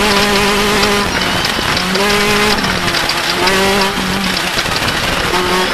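Off-road race car engine running, its note holding steady for about a second, then dropping away and coming back several times at changing pitch.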